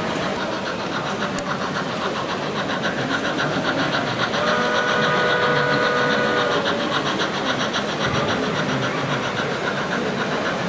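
Model train running on a layout: a steady mechanical whir with fast, even clicking. About four seconds in, a held two-note tone sounds for about two seconds.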